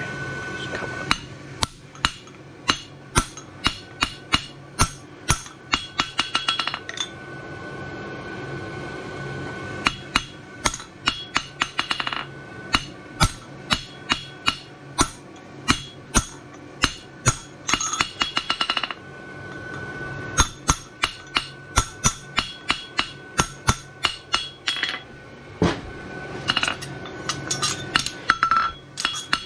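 Farrier's hammer striking a hot steel horseshoe on the anvil, in runs of about two to three blows a second with a bright metallic ring. There are two short bursts of quick light taps and brief pauses between the runs.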